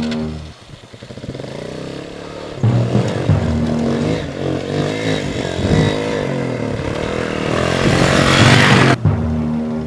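An engine revving up and down, rising in pitch and loudness toward the end, then cutting off abruptly about nine seconds in.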